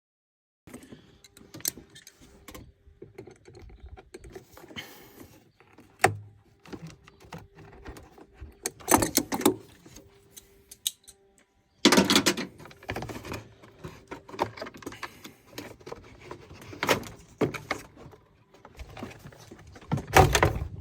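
Metal clinking, rattling and knocking from hand tools and latch parts being worked on a truck's hood latch assembly. There are scattered clicks and several louder clattering bursts, and a faint steady hum runs through the first half.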